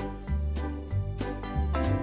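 Upbeat instrumental background music with a bass line and a steady beat.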